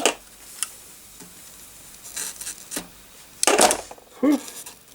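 Hand tools scraping and clicking against a circuit board and its plastic connector as the connector is pried off. There are a few sharp clicks, some scratching, and a loud rasping scrape about three and a half seconds in.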